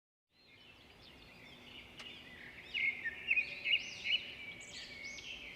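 Songbirds singing outdoors: a run of quick chirps and looping whistled notes, loudest about three to four seconds in, over a faint steady outdoor background. The birdsong starts just after a short silence.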